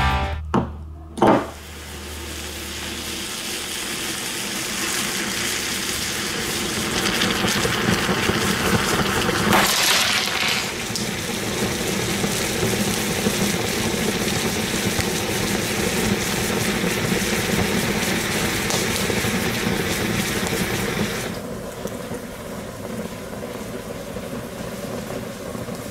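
A glowing red-hot metal ball dropped into a glass jar of chocolate: a couple of sharp knocks as it goes in, then a steady sizzling hiss of the chocolate boiling and burning that builds up, with a louder burst around ten seconds in, and falls quieter near the end.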